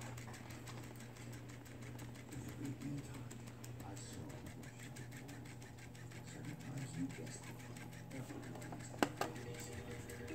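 Light, rapid clicking and rustling of a fabric fish toy being handled and pawed by a baby, over a steady low hum, with one sharp click about nine seconds in.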